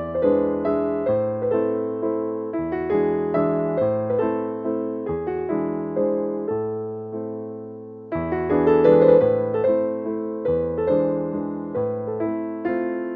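Background piano music: chords and a melody of struck notes that ring and fade. The playing thins out and dies down about eight seconds in, then a new phrase starts.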